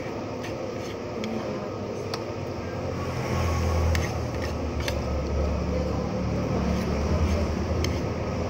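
Low engine rumble of a passing vehicle swelling about three seconds in and fading near the end, over steady background noise, with a few light clicks.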